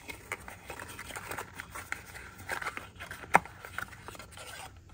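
Cardboard servo box being handled and opened and a servo with its wire lead pulled out of it: card rustling and scraping with many small clicks, and one sharper tap about three and a half seconds in.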